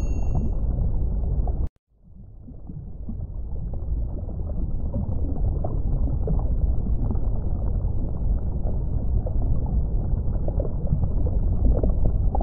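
Steady low rumble of underwater ambient noise. It cuts out abruptly about two seconds in and fades back up. A short bright chime rings right at the start.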